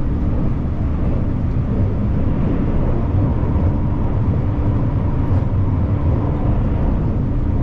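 A moving train's steady running rumble, with a constant low hum over it.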